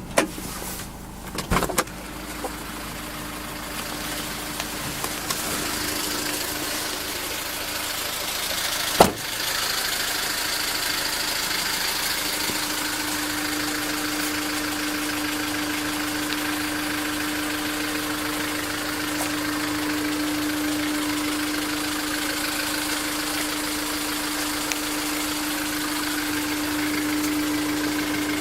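Car engine running steadily at idle, the engine noise its owner is recording after a second TCT replacement. A few knocks come in the first two seconds and a sharp snap about nine seconds in. After the snap the engine runs louder, with a steady hum.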